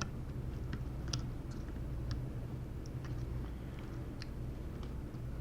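Scattered light clicks and ticks, about seven over the few seconds, from hands and tools working protective tape off a laptop motherboard. A steady low hum runs underneath.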